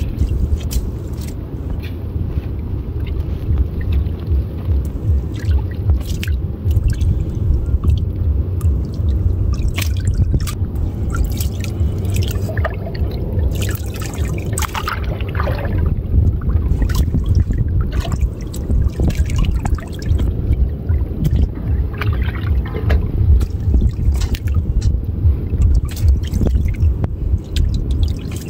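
Water splashing and dripping as hands work through a fishing net held in shallow water, with many short splashes and drips over a steady low rumble.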